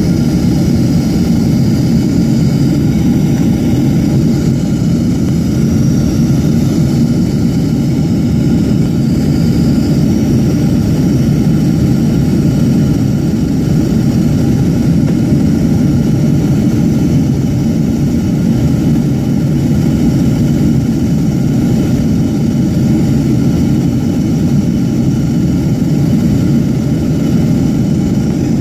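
Steady, deep cabin noise of a jet airliner in flight: its engines and the airflow around the fuselage, heard from inside the cabin.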